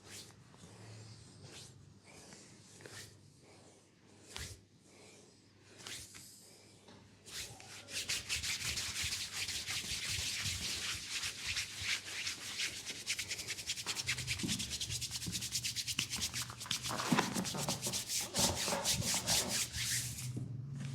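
Hands rubbing against hair and skin during a head massage. Slow, scattered strokes come first; then, about seven seconds in, a fast steady run of several brisk rubbing strokes a second begins, which stops shortly before the end.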